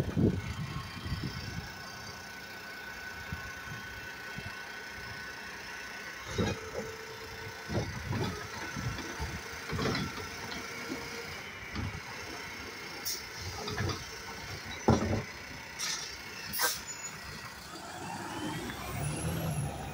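Mack LR automated side-loader garbage truck running at the curb while its hydraulic arm lifts a trash cart, empties it into the hopper and sets it back down. Under the steady engine and hydraulic hum come a series of knocks and bangs, the loudest near the end, with short sharp hisses.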